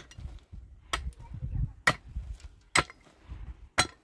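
Repeated sharp blows of a tool striking wood, evenly spaced about one a second, five in all.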